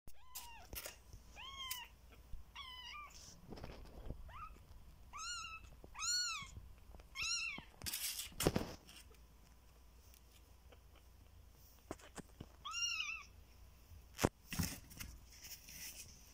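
A very young kitten meowing repeatedly in short, high-pitched calls that rise and fall, several in quick succession and then one more after a pause. A couple of sharp knocks sound around the middle and near the end.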